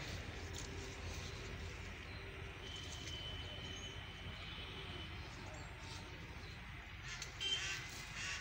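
Outdoor ambience with a steady low rumble and a thin, high, held tone in the middle. About seven seconds in, crows start cawing loudly.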